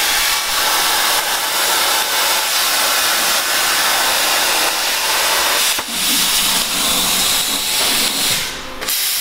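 CNC plasma cutter torch cutting sheet metal, a loud steady hiss of the plasma arc and air jet. The hiss breaks briefly about six seconds in and eases near the end as the cut finishes.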